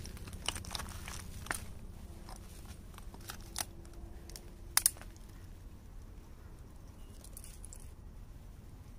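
Handling noise as a hooked tilapia is unhooked by hand: scattered small clicks and crackles, with a loud double click about five seconds in, over a low steady rumble.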